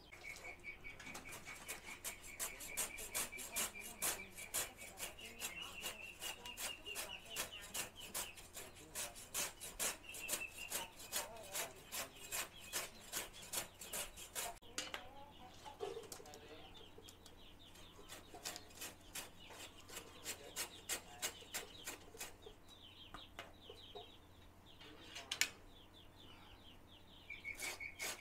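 Knife chopping banana plant for animal feed in fast, even strokes, about four a second, thinning to scattered strokes about halfway through. Chickens cluck.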